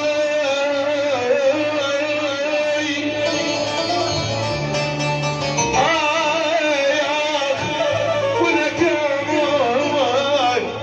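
Middle Eastern music playing continuously: an ornamented, wavering melody over sustained bass notes.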